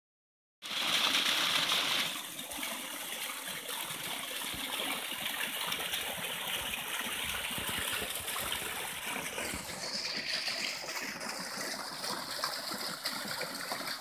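Small waterfall spilling over rocks into a shallow rock pool: a steady rush of splashing water, a little louder for the first second or so.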